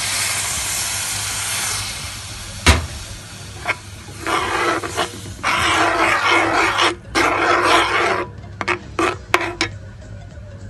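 Liquid milk poured into a pan over powdered milk with a steady hiss, then a single sharp clack of the spoon against the pan. After that, a spoon scrapes and stirs the milk paste against the bottom of the pan in several rough, scratchy strokes.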